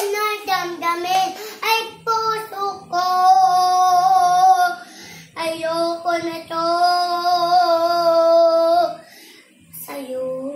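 A young child singing: quick short phrases at first, then two long held notes, the second breaking off about nine seconds in.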